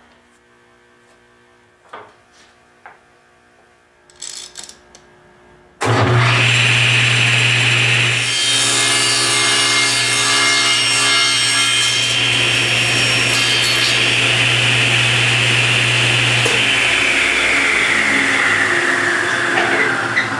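After a few light knocks, a table saw is switched on about six seconds in and runs while it cuts a small block off a piece of teak. Near the end the motor is switched off, and its whine falls steadily as the blade winds down.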